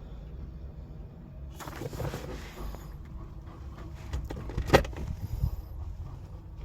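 Handling noise: a brief rustle, then a short run of sharp clicks and knocks, the loudest about five seconds in, over a steady low rumble.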